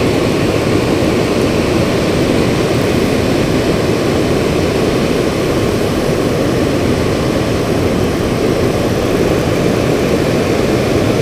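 Rushing water at a dam spillway: a steady, unbroken noise with no rise or fall.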